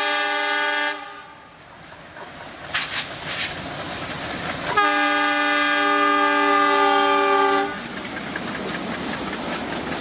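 Chord horn of a passing diesel locomotive hauling a freight train: one blast cuts off about a second in, and a second blast of about three seconds sounds from near the middle. Between and after the blasts come the locomotive's engine running and the clatter of tank wagons over rail joints.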